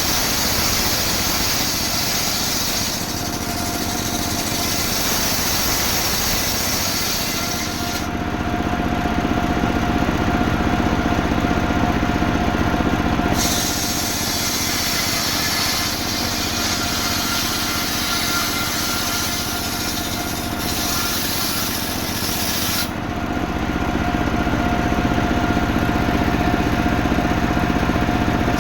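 Engine-driven saw running steadily and cutting through a coconut-palm trunk. The rasping cutting noise stops for a few seconds twice, about eight seconds in and again near the end, while the engine keeps running a little louder.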